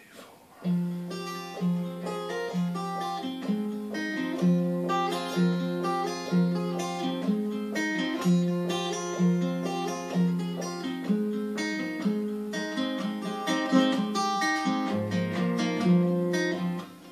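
Acoustic guitar played solo, picked notes over a bass note repeated about once a second, starting just under a second in.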